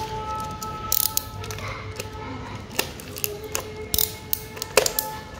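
A craft cutter's blade clicked out, then a run of clicks and scrapes as the blade pierces and cuts the packing tape and plastic wrap of a parcel.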